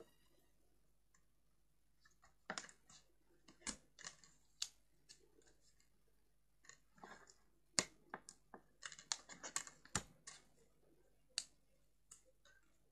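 Double-sided tear tape being pulled off and pressed onto cardstock by hand: scattered light clicks and crackles of tape and paper, busiest about seven to ten seconds in.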